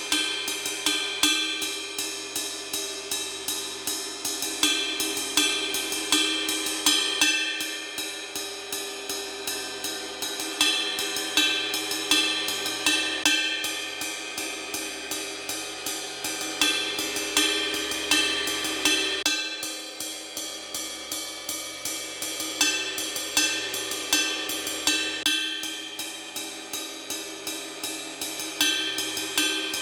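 Acoustic drum kit played with wooden drumsticks: a steady, fast groove of hi-hat and cymbal strokes over snare and bass drum, with accented hits and small changes in the pattern every few seconds.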